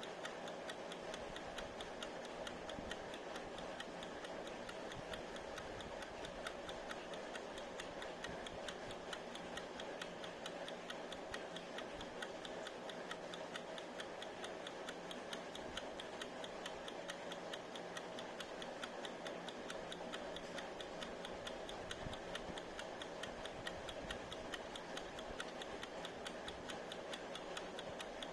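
Mechanical wind-up kitchen timer ticking, a fast, even run of ticks.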